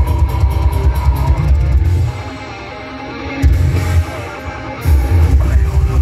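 Heavy metal band playing live through a festival PA, heard from the crowd on a phone microphone: distorted guitars and drum kit over heavy bass. The full band drops back about two seconds in, strikes one short hit around three and a half seconds, then comes back in full about five seconds in.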